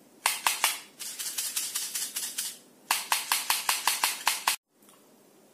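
Homemade cardboard castanet clacking, the two caps glued inside striking each other as the hand squeezes it. Quick clicks come in two runs, the second faster and louder, and stop suddenly about four and a half seconds in.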